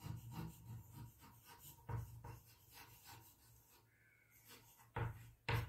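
Chalk writing on a blackboard: a run of faint, short scratches and ticks as a word is chalked, with two louder knocks near the end.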